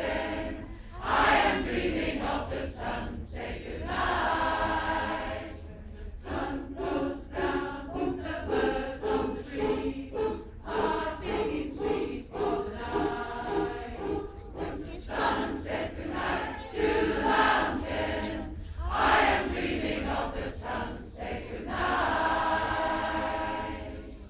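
Large choir singing together, with long held notes between shorter phrases.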